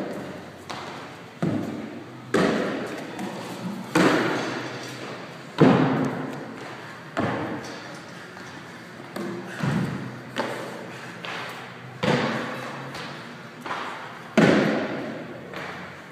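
Repeated heavy thuds, about one every second or two, each echoing briefly in a large gym hall: impacts of bodies and feet on gym equipment and the floor.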